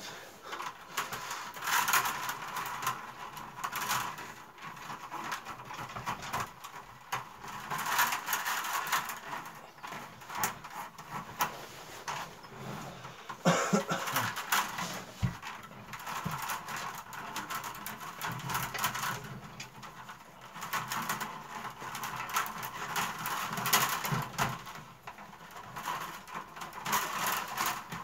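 Willow rods rustling, creaking and scraping against each other as they are woven by hand between the close-set stakes of a wicker basket, in irregular swells with scattered sharp clicks.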